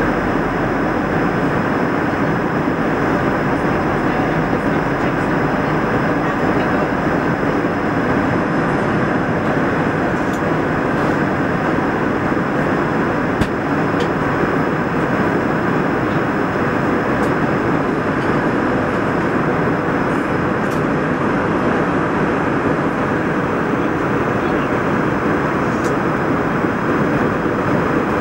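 Airbus A320 cabin noise at cruise: a steady rushing drone of airflow and engines, even throughout, with a faint high steady whine above it.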